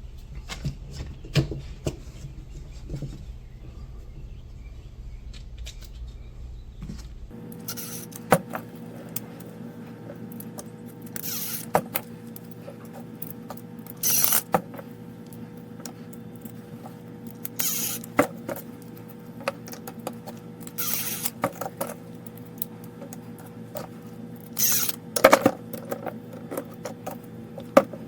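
Light clicks and clatter of parts being handled and fastened during assembly, with several short bursts of noise every few seconds.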